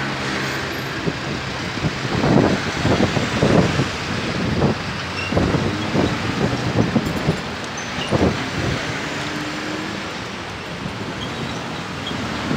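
Road traffic on a city street: cars and vans driving past with a steady road noise. Louder surges come about two to four seconds in and again around eight seconds.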